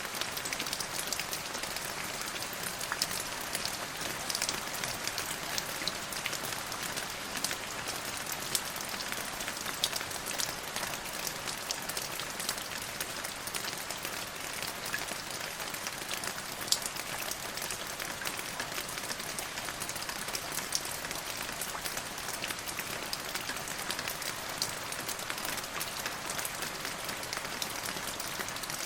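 Steady rain falling, a dense even hiss with many small drop ticks on a hard surface.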